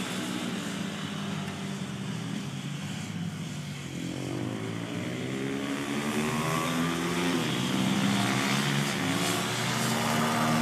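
Racing motorcycles running on a circuit, more than one engine heard at once; from about four seconds in an engine's pitch climbs steadily as a bike accelerates, and the sound grows louder toward the end.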